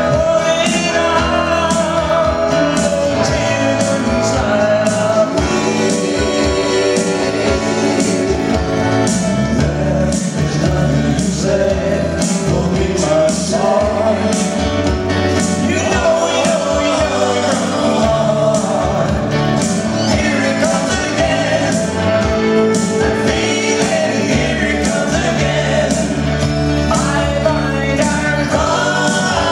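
A live band plays a song with male voices singing, over electric guitar, bass guitar and keyboards, with a steady beat.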